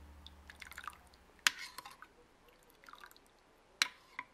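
A metal spoon stirring milk in a stainless steel saucepan: soft liquid swishing with a few sharp clinks of the spoon against the pan, the loudest about a second and a half in and again near four seconds.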